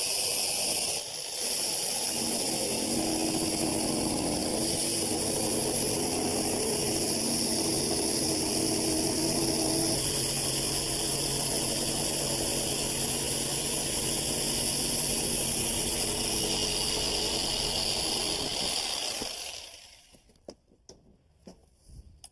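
Reciprocating saw running steadily as it cuts the exhaust vent opening through the house wall's sheathing, then stops a few seconds before the end.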